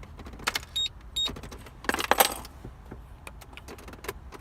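Clicking and rattling handling noises in a car, with two short high electronic beeps about a second in and a louder rattle about two seconds in.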